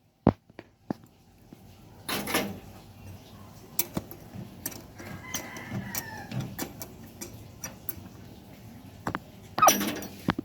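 A rooster crowing faintly in the background about halfway through, among scattered sharp clicks and knocks and two louder short noisy bursts, one about two seconds in and one near the end.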